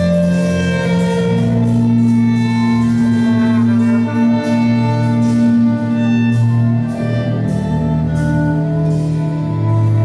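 Live small ensemble playing: two violins bowing held melodic lines over a low sustained bass, with trumpet in the group and a light ticking beat about twice a second.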